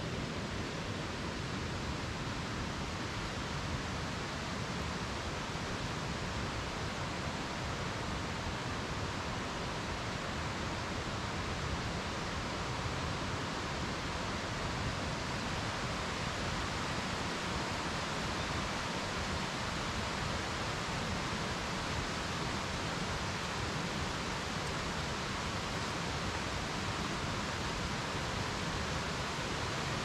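Steady, even rushing of a mountain stream, with no breaks or changes.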